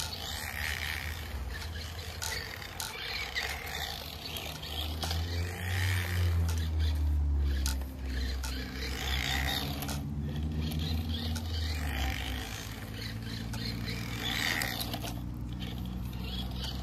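Traxxas LaTrax Rally 1/18-scale RC car's brushed electric motor and drivetrain whining as it drives laps on asphalt, swelling and fading as it passes. It carries an odd drivetrain noise that the driver suspects comes from a rock having damaged the rear axle. A lower hum builds about five seconds in and fades after about seven seconds.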